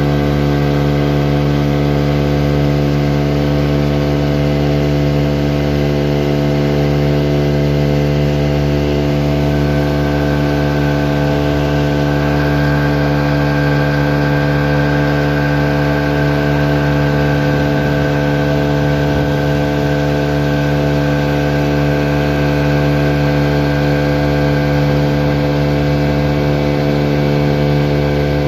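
An engine running steadily at a constant speed, with a higher steady tone joining about ten seconds in.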